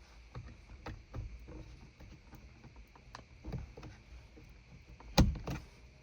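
Small clicks and taps of hands handling plastic dome-light parts while 194 wedge-base LED bulbs are pushed into their sockets. One sharp click about five seconds in is the loudest.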